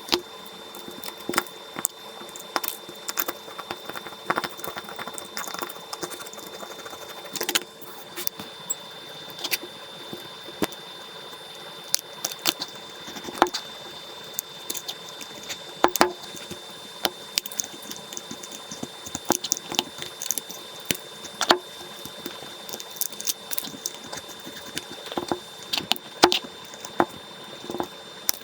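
Small hand tools clicking, tapping and scraping irregularly on an iPhone 12 Pro's cracked back glass and frame during a back-glass replacement, under a faint steady high whine.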